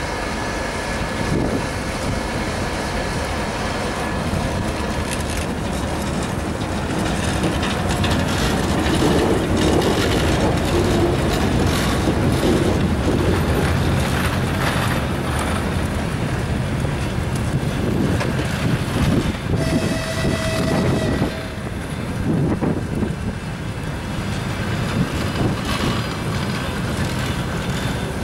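EP1M electric locomotive and its passenger coaches rolling slowly into the station. The wheels rumble steadily on the rails, with repeated clicks over the rail joints. A brief steady tone sounds about twenty seconds in.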